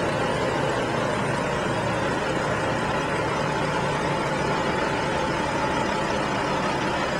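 Heavy-haul truck's diesel engine running steadily under load as it pulls a multi-axle trailer carrying a 110-ton transformer, with a constant mix of engine and tyre noise.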